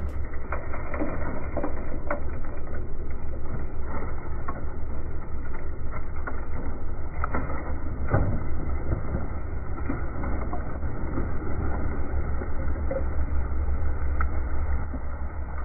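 G-scale model steam locomotive and cars running on garden railway track: a steady low rumbling with scattered clicks and knocks. A knock about eight seconds in comes as dirt bursts over the engine in a staged derailment.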